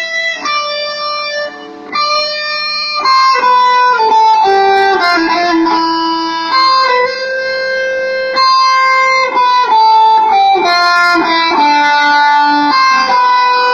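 Electric guitar playing a slow single-note melody of held, sustained notes, tried out during a sound check before a show.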